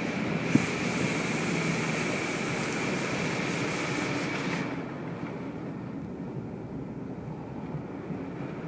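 Steady road and engine noise heard from inside a moving car's cabin. A short knock comes about half a second in, and the upper hiss drops away about halfway through.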